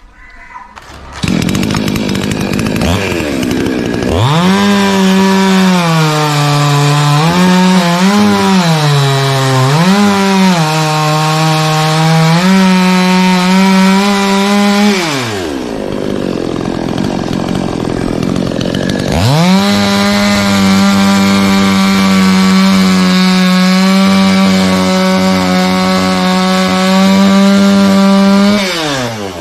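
Chainsaw cutting into a coconut palm trunk at full throttle, its engine note dipping a few times as the chain bites. About halfway through it drops back to idle for a few seconds, then revs up again and runs steadily before easing off near the end.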